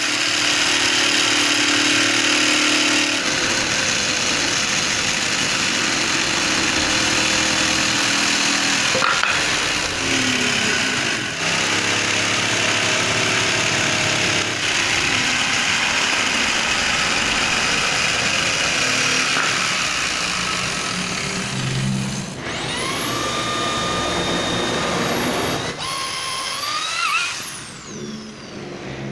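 An electric power tool cutting into a hard wood board, a loud, steady grinding noise. In the last several seconds the motor runs free, its whine rising and holding, then winding down near the end.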